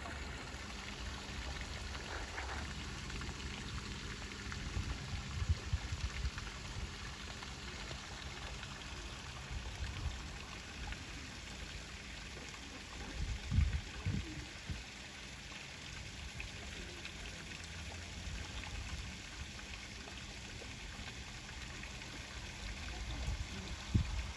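Steady hiss of falling or running water, with a few low thumps about halfway through and again near the end.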